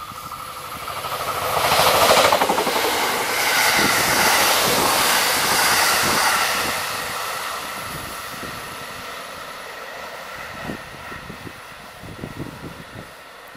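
Limited express electric train passing at speed with a rush of wheel and rail noise. It swells quickly to its loudest about two seconds in, holds until about six seconds, then fades away as the train recedes. Wind buffets the microphone near the end.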